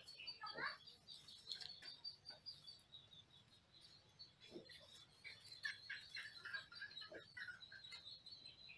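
Faint, scattered high squeaks and light scrabbling of mice, with short soft clicks here and there.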